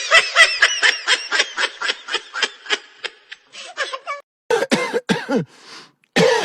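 A person laughing in a quick run of short, high-pitched bursts, about five a second; about four seconds in, a lower voice takes over with a few short falling bursts of laughter or coughing.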